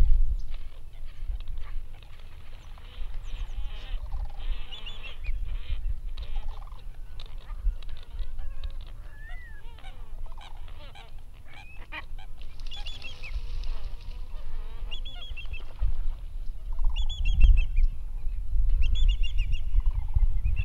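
A flock of geese honking in quick series of short, high calls that come again several times, over a constant low rumble.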